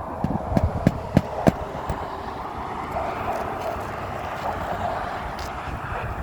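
Hammer strikes on roofing, about three sharp knocks a second, nailing down a shingle; they stop about a second and a half in. A steady background rumble then holds.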